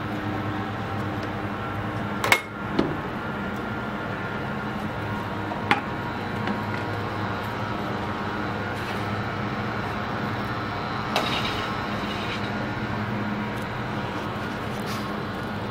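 Rubber window squeegee drawn across wet plate glass and its stainless steel frame, giving a few short squeaks and clicks, the sharpest about two seconds in, over a steady low hum.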